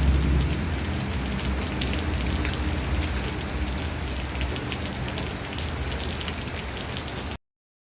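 Steady rain falling, with many separate drops striking a surface over a low rumble; it cuts off suddenly near the end.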